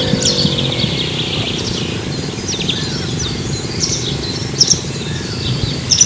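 A foal snoring in its sleep, a long low rattle, with small birds chirping throughout.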